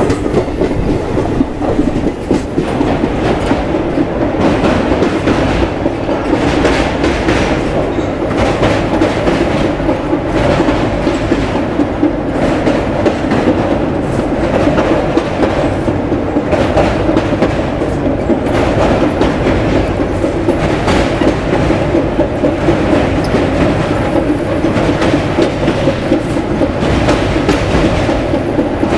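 Coromandel Express passenger train running at speed, heard from aboard the coach: a steady rumble with the clatter of wheels on the track.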